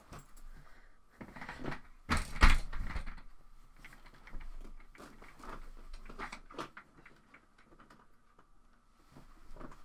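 An office chair being grabbed, swung around and lifted overhead: a run of knocks, bumps and rattles of its frame and wheels, loudest in one heavy thump about two and a half seconds in.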